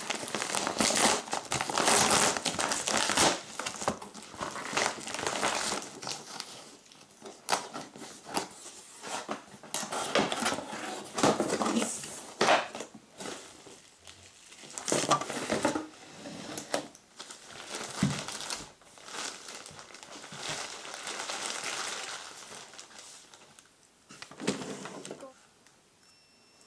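Crinkling and rustling of a silver foil bubble mailer being opened by hand, loudest in the first several seconds, then irregular rustles and crinkles of packaging and plastic wrap being handled, dying away near the end.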